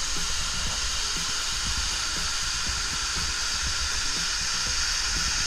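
Large waterfall pouring, a steady, unbroken rush of falling water.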